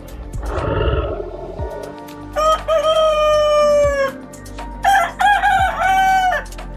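A rooster crowing twice, two long drawn-out cock-a-doodle-doo calls that sag in pitch at the end, over background music with a steady beat.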